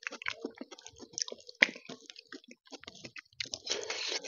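Close-miked eating sounds: wet chewing and mouth clicks, with the squish of rice and taro root curry being mixed by hand on a metal plate. The sounds come as many short clicks, with one sharper click about a second and a half in and a thicker wet squelching stretch near the end.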